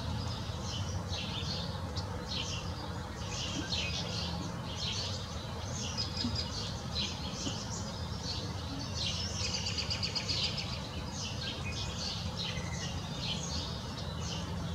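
Backyard birds chirping and singing in quick, overlapping high calls, over a low steady rumble.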